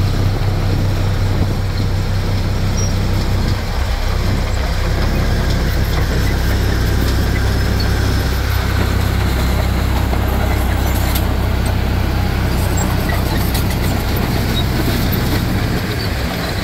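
Heavy construction machine's diesel engine running steadily, a low hum with a noisy mechanical rattle over it.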